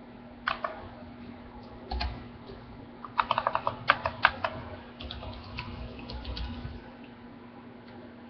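Keys typed on a computer keyboard: a few scattered keystrokes, then a quick run of about half a dozen about three seconds in, followed by a few more.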